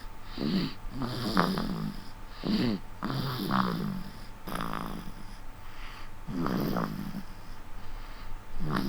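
Newborn baby snoring: about seven short, irregular snores in a row.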